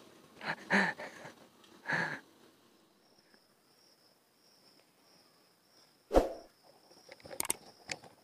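A man laughing in short bursts. A few seconds of near quiet follow, then a sharp knock and a few sharp metallic clicks as a Mauser C96 pistol is handled.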